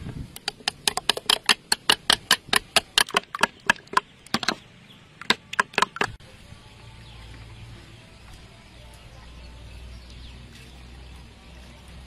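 Raw egg yolks being beaten in a bowl with a utensil: quick, regular clicking strokes, about four or five a second, with a short pause. The beating stops about six seconds in, leaving only a faint low hum.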